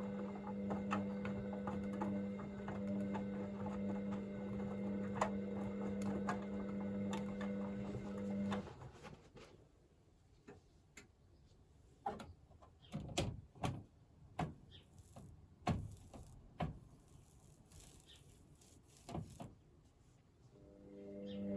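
Hoover VisionDynamic front-loading washing machine tumbling a load in its heated wash: the drum motor hums steadily, stops about eight seconds in, and after a quiet pause with scattered clicks and knocks starts again near the end.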